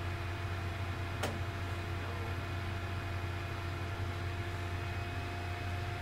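A steady low mechanical hum with faint steady tones above it, and a single sharp click about a second in.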